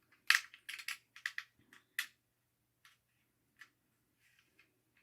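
Sharp clicks and taps of hard plastic as the remote control dolphin toy is handled and worked on, a quick cluster in the first two seconds, then a few fainter ticks.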